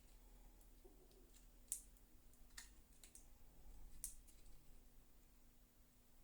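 Near silence broken by a few faint, sharp clicks, the clearest three about a second apart, as small printer parts are handled.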